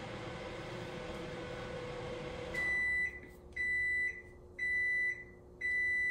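A steady machine hum cuts off about two and a half seconds in, followed by four high electronic beeps about a second apart.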